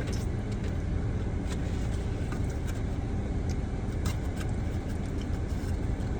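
Steady low rumble of a car idling, heard from inside the cabin, with a few soft clicks scattered through it.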